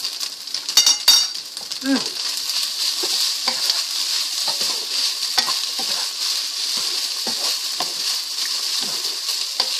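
Udon noodles and vegetables sizzling steadily in a nonstick wok while a wooden spatula tosses them, with scattered soft knocks of the spatula against the pan. Two sharp clinks sound about a second in.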